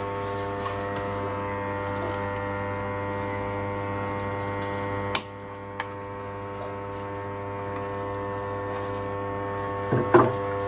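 Electric water pump motor humming steadily, a stack of even tones on the mains hum. A sharp click about five seconds in, after which the hum briefly drops a little in level, and a smaller click just after.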